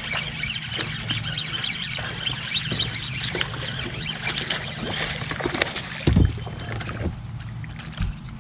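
A hooked bass splashing and thrashing at the water's surface as it is reeled in to the boat. There is a heavy thump about six seconds in and a smaller one near the end as the fish is swung aboard.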